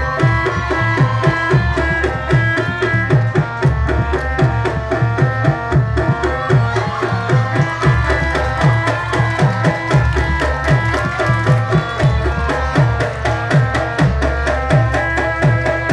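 Javanese gamelan-style accompaniment for the warok dance. Hand drums beat a fast, steady rhythm with strokes that drop in pitch, under repeated pitched metallophone or gong-chime notes and a wavering high melody.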